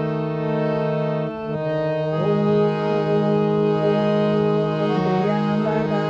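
Instrumental music: sustained held chords that change about a second in, then a melody with sliding notes over them.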